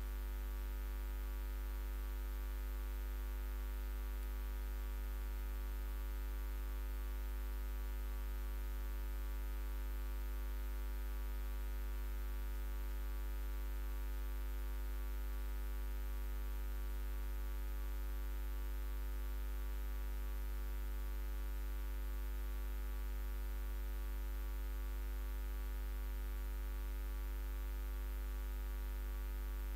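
Steady low electrical hum with a faint layer of steady higher tones and hiss, unchanging throughout: mains hum picked up by the recording's audio input.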